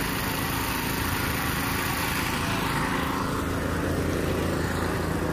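A small engine running steadily, a continuous hum that holds the same level throughout.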